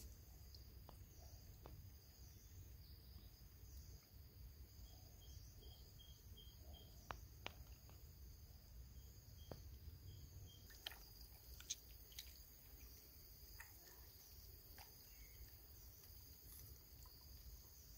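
Faint outdoor ambience: a steady high drone of insects, with a short run of quick chirps about five seconds in and again near ten seconds, and a few faint clicks.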